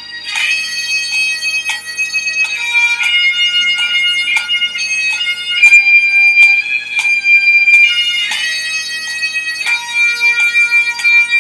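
Bagpipe music: a pipe melody with quick grace notes, played over steady drones.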